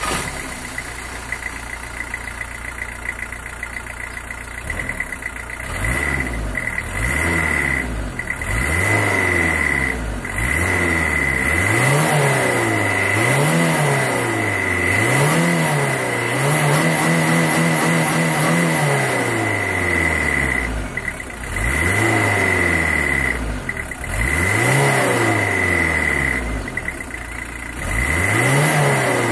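Audi 80 B3 1.6 TD's four-cylinder turbodiesel heard at the stock exhaust, idling for about five seconds, then revved again and again in short blips every second or two, with one rev held for about two seconds midway.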